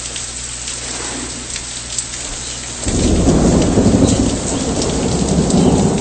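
Steady rain hiss with scattered drop ticks. A loud, low rumble of thunder sets in suddenly about three seconds in and rolls on until near the end.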